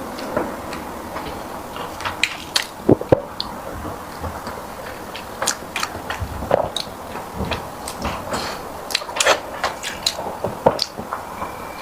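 A person chewing a mouthful of sticky rice close to the microphone, with irregular wet clicks and smacks of the mouth.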